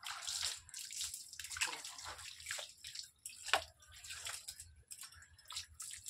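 Water poured from a small mug over legs and feet during a bucket bath, splashing on the floor in a series of irregular pours and splashes.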